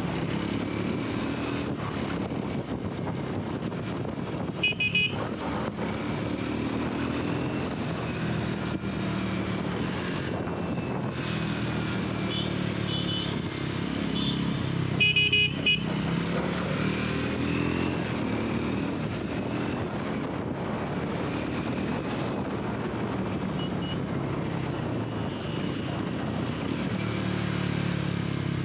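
Triumph 400's liquid-cooled single-cylinder engine running in traffic, its pitch rising and falling with the throttle. Vehicle horns honk briefly about five seconds in and again around fifteen seconds in.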